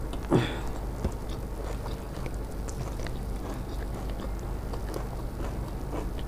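A person chewing a mouthful of puffed rice mixed with spiced yellow-pea curry (ghugni muri), with faint small crunches and wet mouth sounds over a steady low hum. There is one brief louder noise just after the start.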